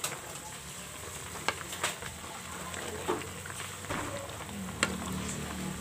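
Chicken adobo and potatoes simmering in their sauce in a wide pan, making a steady bubbling sizzle, while a spatula stirs the pieces and knocks against the pan a few times.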